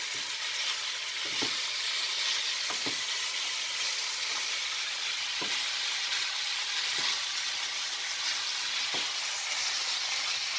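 Mixed vegetables (shredded cabbage, carrot and potato) sizzling with a steady hiss as they stir-fry in a pan. A wooden spatula turns them, knocking or scraping softly against the pan every second or two.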